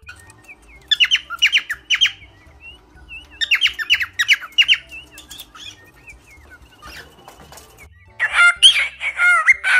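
Small caged parrots calling with shrill, sharp chirps in quick runs of three or four, about a second in and again at about three and a half seconds. Near the end comes a denser burst of mixed chirps and squawks.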